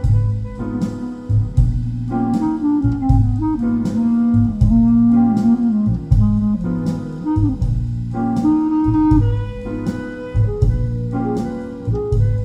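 Instrumental jazz-style music played back over hi-fi loudspeakers for a listening test: a gliding lead melody over bass and a steady drum beat.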